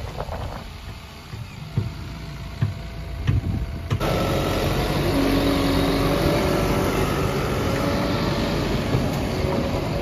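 Tata Hitachi Shinrai backhoe loader's diesel engine running, with a few short knocks in the first few seconds. About four seconds in, it turns suddenly louder and steady, with high whining tones over the engine.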